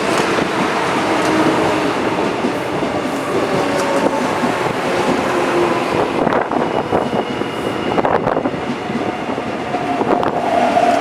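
Seoul Metro Line 1 electric train with a GTO-thyristor inverter drive pulling into a station. The inverter and traction motors whine in several tones over wheel rumble and clatter on the rails, with a steady tone growing stronger near the end.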